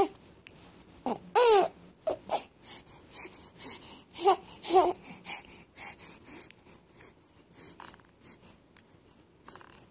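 Baby cooing and babbling: a few short, high-pitched vocal sounds with soft breathy noises between, quieter in the second half.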